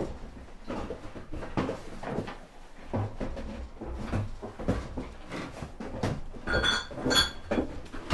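Someone rummaging through kitchen cabinets: irregular knocks and clatters of cans and dishes being moved about. Two short high-pitched sounds come near the end.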